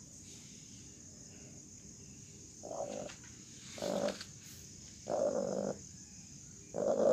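Broody hen giving four short, low growling calls about a second apart, her warning protest at a hand being pushed under her while she sits on eggs.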